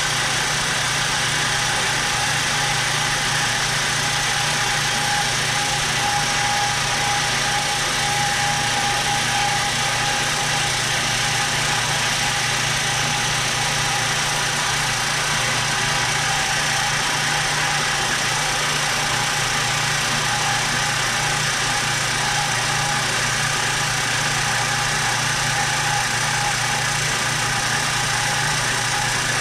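Bandsaw running steadily with a steady whine, its blade cutting through a 3D-printed plastic part.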